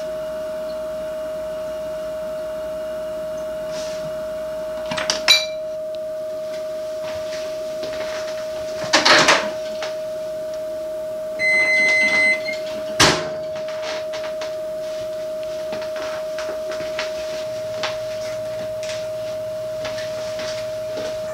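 A steady single-pitched tone drones without a break: the unexplained sound being searched for. Over it come a few knocks and rattles of kitchen appliances being handled, a loud beep of about a second from a microwave oven just past the middle, and a sharp clack right after it.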